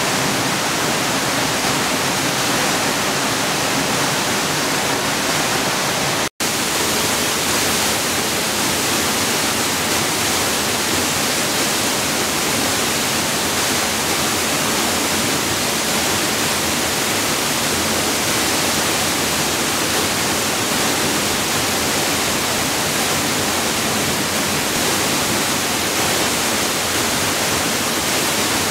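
A wide, heavy-flowing curtain waterfall pouring steadily, a dense unbroken rush of falling water. The sound cuts out for an instant about six seconds in.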